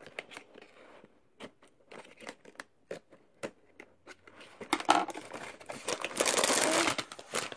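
Scissors cutting through a cardboard box in short, scattered snips, then a denser stretch of cardboard rustling and tearing as the box is pulled open, starting about five seconds in and louder than the cutting.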